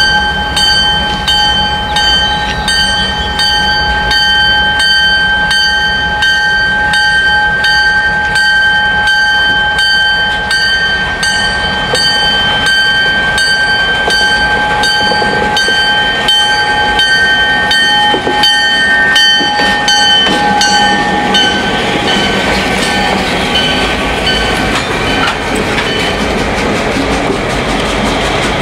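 CN GP38-2W and GP38-2 diesel locomotives, with EMD 16-cylinder two-stroke engines, rolling slowly past, their engines throbbing. A steady high-pitched squeal and an even clicking run through the first two-thirds, then fade as the engine noise grows louder with the locomotives close by.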